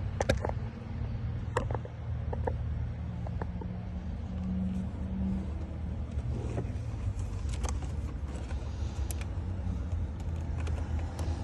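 Small metal clicks and scrapes of a tool working the ignition lock cylinder out of a steering column, as the sidebar is pressed to release it, over a steady low hum.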